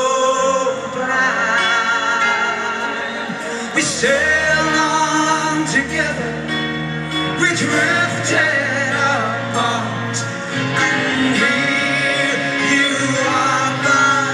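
Live rock band playing a power ballad, heard from the audience: a male lead vocal with wavering vibrato over bass guitar and drums, with low bass notes coming in about four seconds in.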